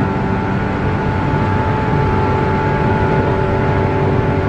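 Cabin sound of a JR 117 series electric train running at steady speed: the underfloor traction motors whine at a steady pitch over the rumble of wheels on rail.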